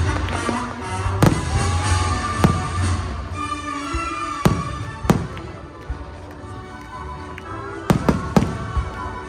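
Aerial fireworks bursting, a string of sharp booms and cracks, several of them close together near the end, over music playing throughout.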